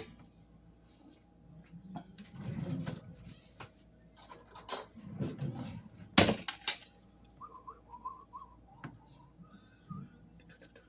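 Kitchen clatter of utensils and containers being handled on a counter: scattered knocks, clinks and rustling, with a sharp clack about six seconds in.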